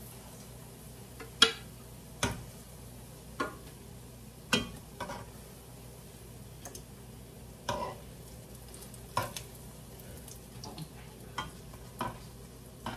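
Banana fritters sizzling in shallow oil in a frying pan. Metal tongs click and tap against the pan about a dozen times at irregular intervals as the fritters are lifted out, the sharpest tap about a second and a half in.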